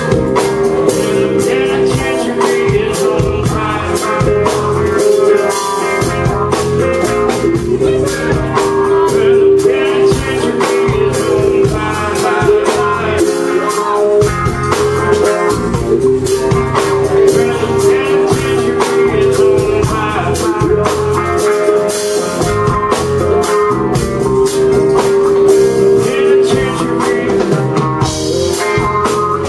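Live full band playing a blues-rock groove: electric guitar over a drum kit, loud and continuous.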